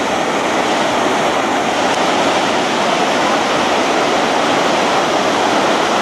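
Tvindefossen waterfall: water cascading down a series of rock steps in a loud, steady rush.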